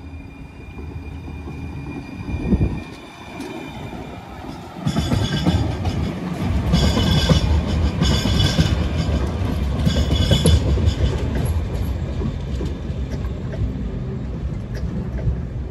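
Alstom Citadis Regio light-rail tram passing close by on ballasted track. A loud rumble of wheels on rail sets in about five seconds in, with a high hiss that comes and goes several times as it goes by.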